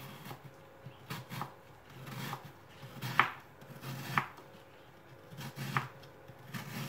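Kitchen knife cutting peeled apples on a plastic cutting board: a series of irregular cuts, each a short crisp crunch and tap of the blade on the board, the sharpest about three and four seconds in.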